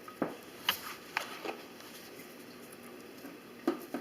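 Light clicks and taps from handling a fish food container while feeding a fish, about six scattered over four seconds.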